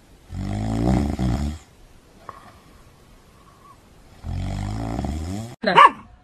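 Flat-faced ginger cat snoring in its sleep: two long, rough snores about four seconds apart. Near the end a short, high-pitched cry rises and falls.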